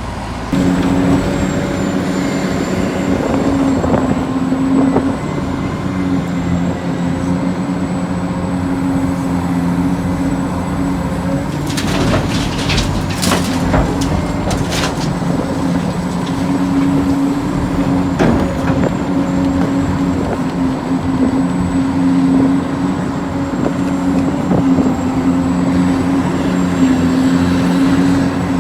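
Electric motors of radio-controlled construction models working, a steady hum with a faint high whine that starts sharply about half a second in. A cluster of clicks and knocks about halfway through.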